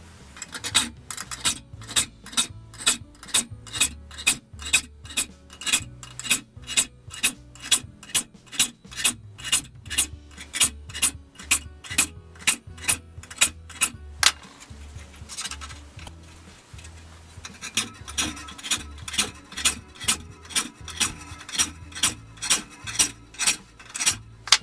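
A saw file rasping across the teeth of a crosscut frame saw blade in a saw vise, sharpening it in quick, even strokes about two to three a second, two strokes per tooth. The strokes stop for about three seconds midway, then resume.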